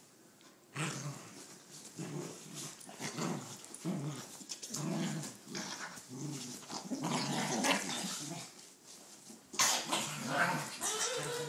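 Two corgis play-fighting, growling in short repeated bursts. About ten seconds in the growling turns louder and sharper.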